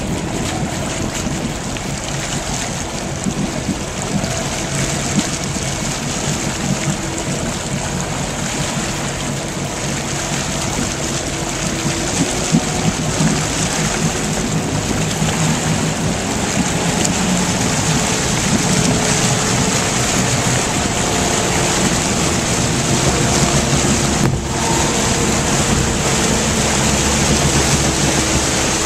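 Motorboat engine running under way while towing a water skier, with water rushing past the hull and wind on the microphone. The sound grows louder from about halfway through as the boat picks up speed.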